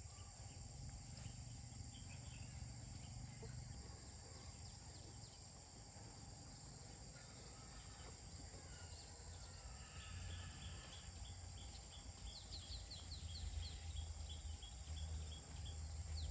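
Steady, high-pitched drone of insects. From about three-quarters of the way through, a bird calls in a quick series of short chirps. A low rumble runs underneath.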